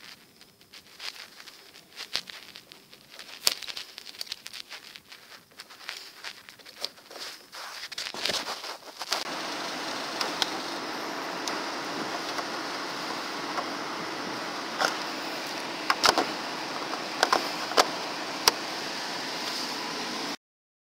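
Small sharp clicks and rustles of a plastic headlamp bulb socket being handled and twisted. About nine seconds in a steady hiss sets in, with a few scattered sharp clicks over it, and the sound cuts off abruptly near the end.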